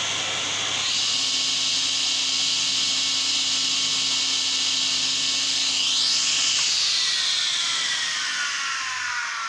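Sliding table saw driven by a 3 hp single-phase motor, switched on with its freshly refitted circular blade spinning free and cutting nothing. Its whine rises to full speed about a second in, holds steady, then falls in pitch from about seven seconds in as the saw winds down.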